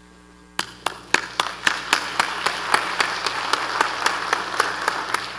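Audience applauding, starting about half a second in, with single sharp claps standing out from the dense clapping, which thins out near the end.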